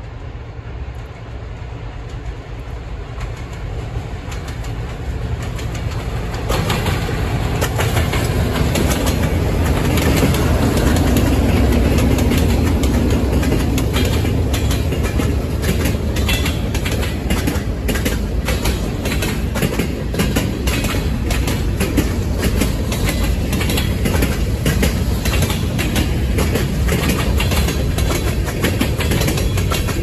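Diesel freight train passing: the locomotives' engines grow louder as they approach over the first several seconds and go by around ten seconds in, then the freight cars roll past with a steady clickety-clack of wheels over the rail joints.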